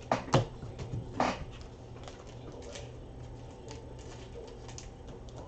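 Trading cards and packs being handled on a desk: a few sharp taps in the first second or so, then light scattered clicks.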